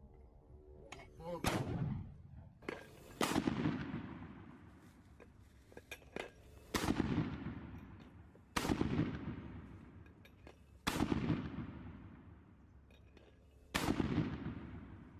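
Six loud blasts at uneven intervals, each a sharp crack followed by a long echoing rumble that dies away over a second or two.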